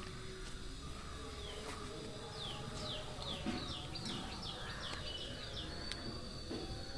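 A songbird singing a rapid run of quick, falling high notes for about three seconds. A thin, steady high tone starts near the end, over a low background rumble.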